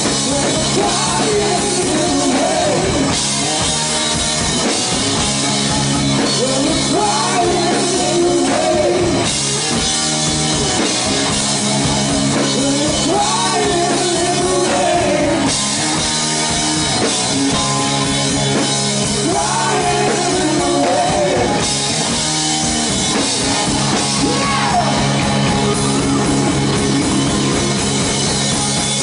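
A live rock band playing: a male singer sings over electric guitar, bass and drums.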